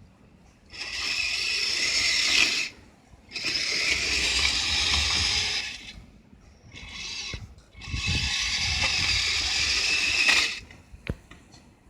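Kyosho Blizzard SR radio-controlled tracked snow vehicle driving in short runs: the electric motor, gears and tracks whir for two to three seconds at a time, three times, with brief stops between, and a few clicks near the end.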